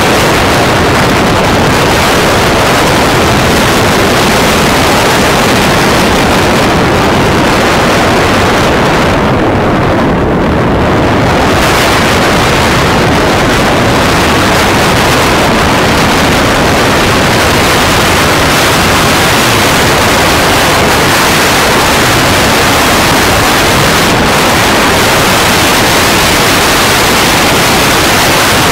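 Loud, steady wind rushing over the microphone of a motorcycle ridden at high speed, masking the engine. The hiss briefly thins in its upper range about ten seconds in.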